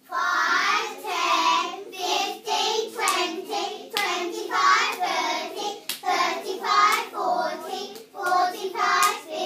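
A group of young children chanting the count by fives in unison, in a steady sing-song rhythm of about two numbers a second.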